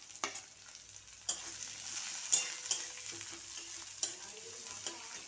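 Vegetables sizzling in hot oil in a metal kadai, with a metal spatula scraping and clinking against the pan as they are stirred; the sharpest clink comes a little over two seconds in.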